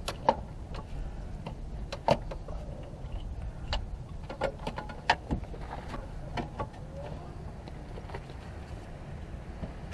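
Irregular sharp metal clicks and knocks of hand tools and bolts as a starter motor's mounting bolts are worked in, over a steady low hum.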